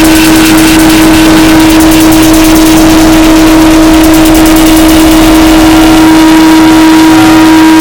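Harsh noise music: a dense, heavily distorted wall of noise at full level with a steady low droning tone through it, unchanging and without rhythm.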